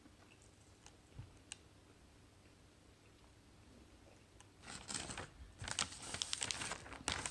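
A few faint clicks, then, about four and a half seconds in, food packaging crinkles and rustles as it is handled.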